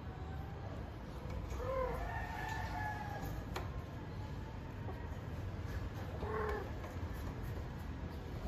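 Female cat in heat calling: three meowing calls, a short one at the start, a longer drawn-out one about two seconds in and another near six seconds. A single sharp click comes between them.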